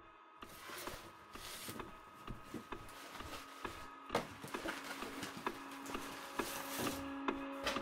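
Horror-film sound design: a hissing, scratching texture that swells in about half a second in, scattered with irregular wooden clicks and knocks, over held drone tones, with a lower drone tone coming in about halfway through and the whole growing louder.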